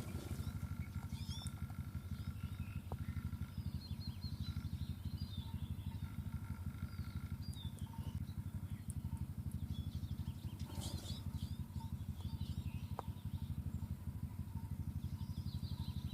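Small birds, such as finches at a feeder, chirping and twittering in short gliding calls, over a steady, rapidly pulsing low hum.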